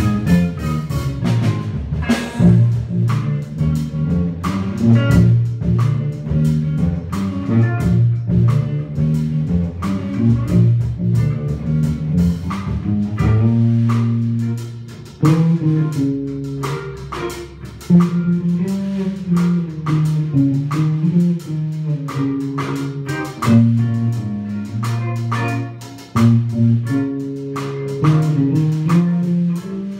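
Live instrumental trio of electric bass guitar, electric guitar and drum kit playing together, the bass carrying a strong moving line under the drums.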